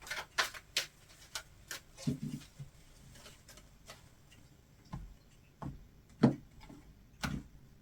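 Tarot cards being handled and shuffled by hand: scattered soft clicks, with a few light thumps as the deck taps the table, the strongest a little after six seconds in.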